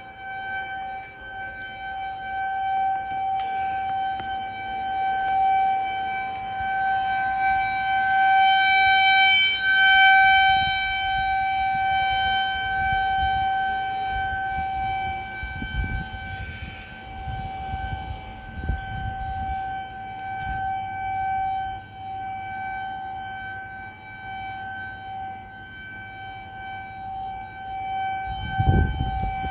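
Outdoor tornado warning siren sounding a steady tone during a test, holding one pitch while its loudness swells and fades. Bursts of low rumble come and go underneath, the strongest near the end.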